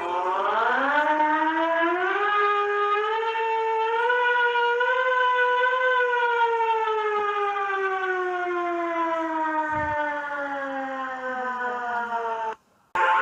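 Russian civil defence air-raid siren: one long wail that winds up in steps to its peak pitch over about four seconds, holds, then slowly falls and cuts off suddenly near the end.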